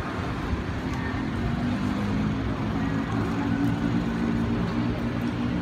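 Street traffic noise: a steady low rumble of road vehicles, with an engine running close by and a held low hum through the middle.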